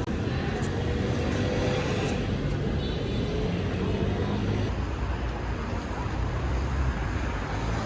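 Steady low rumble and road noise of a moving car; the hiss in the noise changes abruptly about halfway through.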